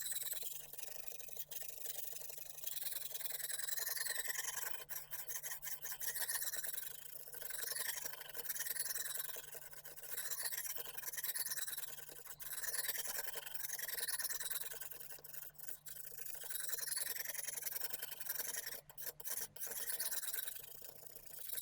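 Coarse 120-grit hone of a Lansky guided knife sharpener stroked along a kitchen knife's edge at a 25-degree angle. It makes a rasping scrape that rises and falls with each pass, about one stroke every second or two.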